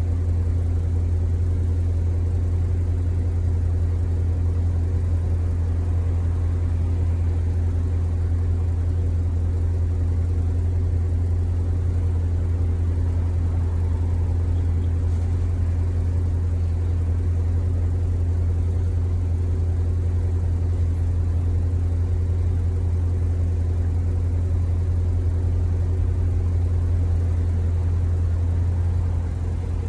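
A steady, loud low mechanical hum with a constant pitch, engine-like, that holds unchanged and dips briefly near the end.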